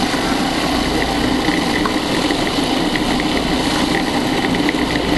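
Food processor motor running steadily, blending a sticky nut mixture that is starting to clump into a ball.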